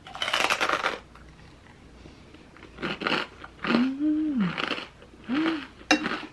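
A loud crunch as a crispy snack topped with yogurt is bitten, then further crunchy chewing. Twice during the chewing there is a short hummed 'mm'.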